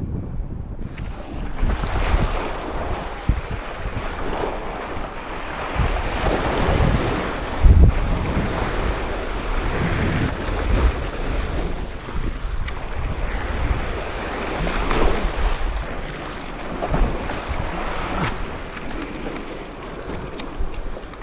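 Sea waves surging and breaking over boulders, swelling and falling every few seconds, with wind buffeting the microphone.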